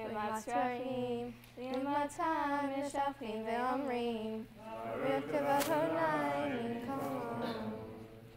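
Young girls' voices chanting a Hebrew prayer in melody, phrases of long held, wavering notes that fill out in the second half and fade away near the end.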